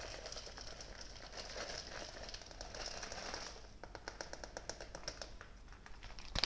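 Soy wax flakes poured from a plastic pouch into a plastic beaker: a soft continuous rustling for about three and a half seconds, then a scatter of light ticks as the flakes fall more sparsely.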